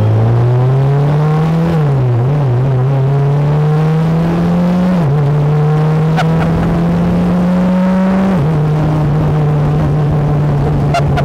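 2015 BAC Mono's four-cylinder engine, mounted right behind the seat, accelerating hard through its sequential gearbox. It is loud, and the revs climb and fall back with quick upshifts about two, five and eight and a half seconds in, then hold steady.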